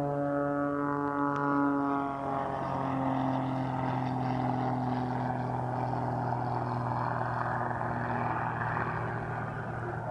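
Propeller drone of the Pitts Special Super Stinker aerobatic biplane's engine in flight: a steady pitched buzz that drops slightly in pitch about two seconds in, then turns into a broader rushing roar.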